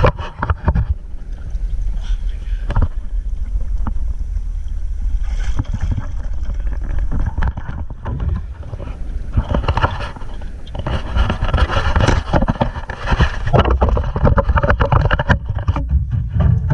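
River water splashing and sloshing right at the microphone beside a small aluminium rowboat, over a steady low rumble of wind on the microphone. There are occasional sharp knocks, and the splashing grows busier past the middle.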